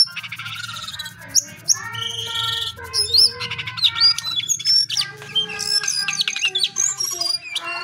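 Male jongkangan, a small brown babbler, singing in a cage at night: a fast, varied run of whistles, rising and falling notes and chatter with no pause.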